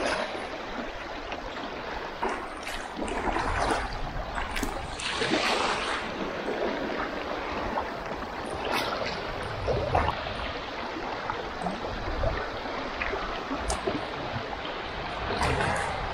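Small waves washing over a rocky shoreline shelf and streaming through shallow tide pools, swelling and easing in irregular surges.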